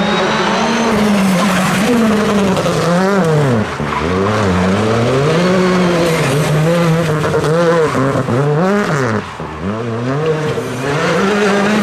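Citroën C3 Rally2's 1.6-litre turbocharged four-cylinder at full effort, its note climbing and falling over and over through rapid gear changes, with deep dips as it brakes about four and nine seconds in. The tyres skid on the asphalt through the tight turns.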